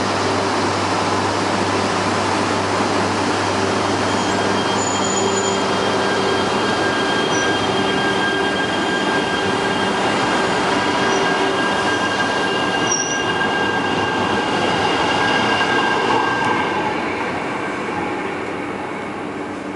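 Yamagata Shinkansen E3 series 2000 train passing through a station on the adjacent track: steady noise of wheels running on the rails with thin, steady high tones over it. It dies away near the end as the last car goes by.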